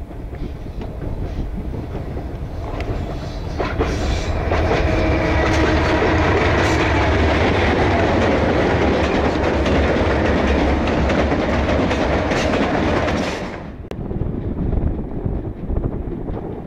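Light-engine consist of ALCO diesel locomotives drifting downhill past at close range: engine rumble and wheels clicking over the rail joints, building to a loud pass about four seconds in. Near the end the pass cuts off abruptly, leaving wind buffeting the microphone.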